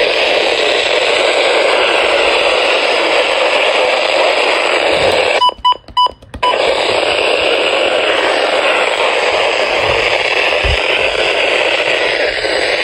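Weather radio receiver hissing with static on a weak, noisy signal. About five and a half seconds in, the hiss drops out for about a second while a few short beeps sound, then the static returns.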